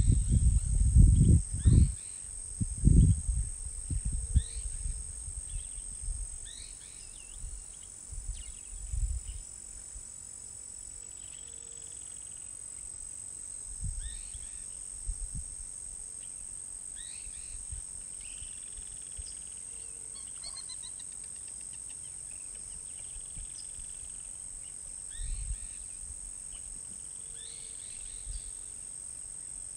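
Steady high-pitched insect trill, like crickets, with birds chirping now and then over it. Low rumbling thumps in the first few seconds, and twice more later, are the loudest sounds.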